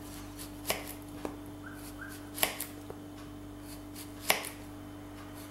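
Kitchen knife slicing a young zucchini into rounds, the blade knocking down onto a plastic cutting board with each cut: four sharper knocks and a few lighter ones at uneven intervals, the loudest about two and a half and four and a half seconds in. A faint steady hum runs underneath.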